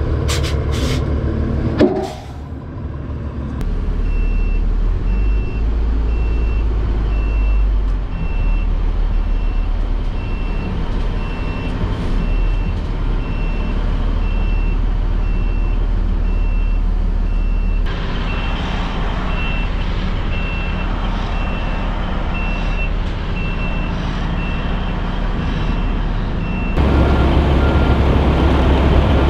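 Fire engine's diesel running while a backup alarm beeps steadily and evenly, stopping shortly before the end. A short sharp noise comes about two seconds in.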